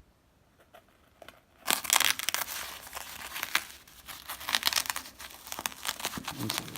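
Hook-and-loop (Velcro) fastener on a fabric dog diaper being pulled open and fumbled with. It sets in about a second and a half in as a dense, irregular crackling rip.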